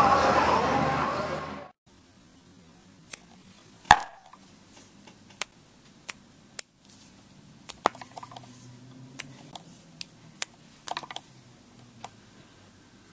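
Opening music fades out about two seconds in. A metal coin then clinks and rings in a scattered series of sharp clicks, the loudest about four seconds in.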